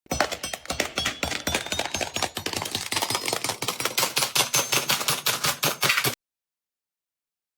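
A rapid clatter of sharp clicks or taps, several a second and uneven, which cuts off suddenly about six seconds in.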